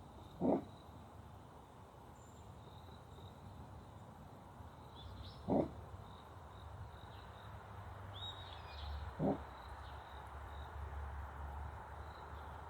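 Three short, loud animal calls, about four seconds apart, which the keeper suspects come from a Japanese badger. Crickets chirp steadily underneath.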